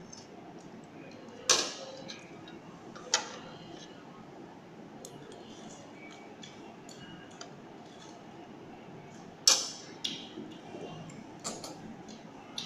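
Metal cutlery clinking against a bowl while eating instant noodles: three sharp clinks, about a second and a half in, about three seconds in and about nine and a half seconds in, with a few lighter taps near the end.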